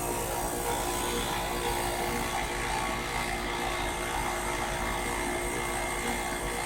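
Outdoor heat pump unit running steadily in a long defrost cycle, a steady mechanical hum with a faint steady tone over it.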